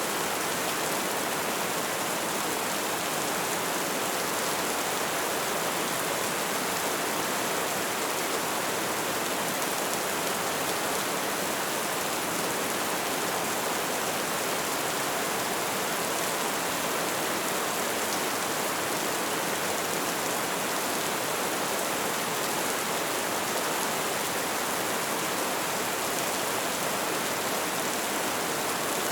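Light rain falling steadily, a dense even hiss of drops pattering on a surface.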